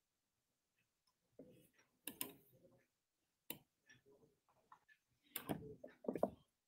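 Faint, scattered clicks and knocks: two close together about two seconds in, a single one midway, and a short cluster near the end.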